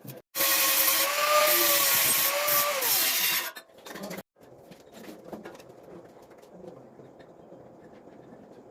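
A handheld power tool runs for about three seconds with a steady whine over a harsh noise, then winds down as the trigger is released. Faint handling sounds follow.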